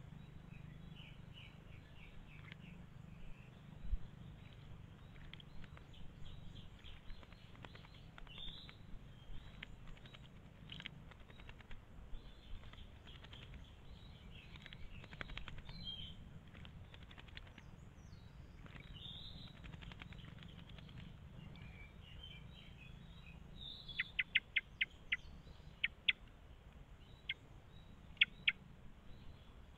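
Wild birds calling: scattered chirps, then a run of sharp, short calls repeated several times near the end, over a steady low rumble. A single soft thump comes about four seconds in.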